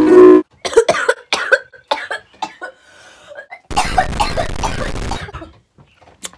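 A woman's coughing fit. It starts with a brief loud voiced cry, then a string of short hacking coughs, then a longer, rougher bout of coughing about four seconds in.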